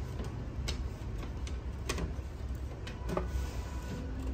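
Plastic clicks and knocks as the paper tray is fitted onto an HP LaserJet Pro M12a laser printer, a few separate clicks with the loudest about two seconds in, over a steady low hum.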